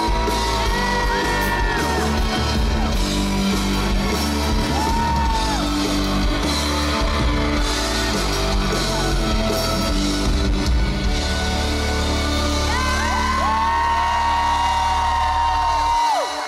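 Live rock band (drums, bass, guitar and keyboards) playing loudly, with high held vocal notes over the music. The band stops abruptly near the end as the song finishes.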